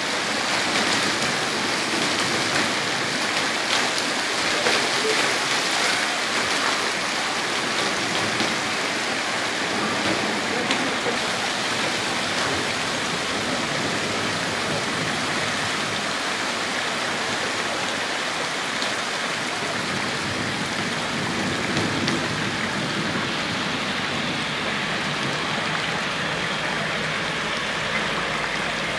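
Heavy rain falling steadily on streets and pavement, a dense, even hiss.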